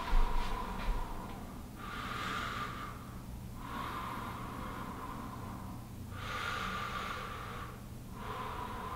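Slow, deep breaths drawn in and let out through the mouth, each in or out breath lasting about two seconds, with two short clicks in the first second.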